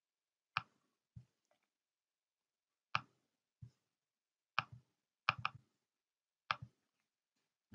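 Computer mouse and keyboard clicks: about a dozen sharp clicks at irregular intervals, some in quick pairs, with near silence between them.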